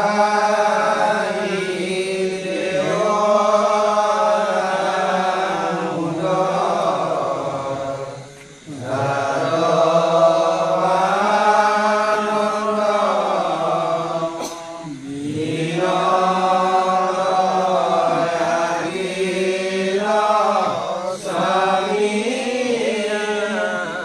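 Assamese devotional naam-prasanga chanting: voices singing long, slow phrases that glide up and down in pitch, with short pauses for breath about eight and fifteen seconds in.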